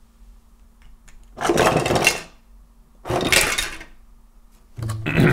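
3D-printed plastic parts tipped out of a cardboard box, clattering onto a tabletop in two rattling spills about a second apart.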